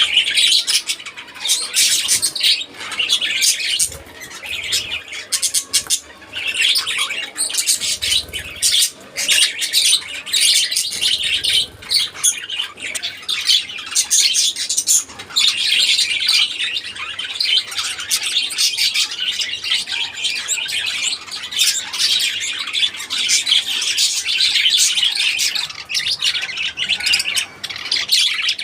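A flock of budgerigars chirping, many high calls overlapping without a break.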